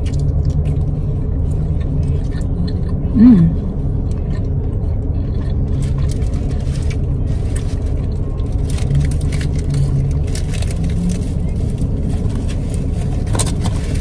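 Close-up chewing of a blackened chicken tender, with wet mouth clicks that come thick from about halfway through. Under it runs the steady low rumble of a car cabin with the engine running. About three seconds in there is one short, loud vocal sound.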